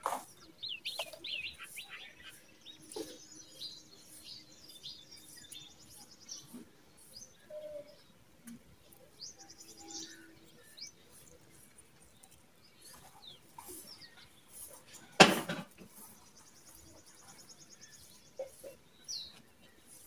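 Small birds chirping and trilling in the background, with soft scattered clicks and rustles, and one sharp knock about fifteen seconds in.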